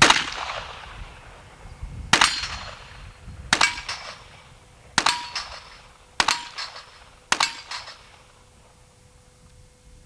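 .38 revolver firing six shots, each about a second and a half apart, every shot followed by a short echo.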